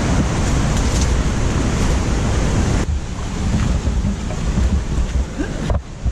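Steady rushing noise of fast-flowing stream water, mixed with wind buffeting the camera microphone, with a heavy low rumble. The sound changes abruptly twice, about three and six seconds in.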